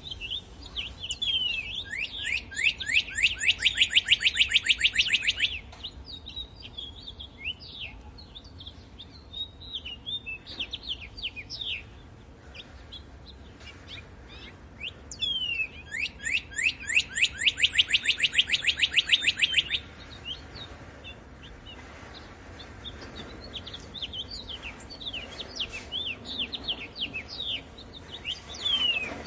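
Songbirds singing: two loud trills of rapid, repeated downward-sweeping notes, each about four seconds long, about a second in and again about 15 seconds in, with scattered shorter chirps and whistles between.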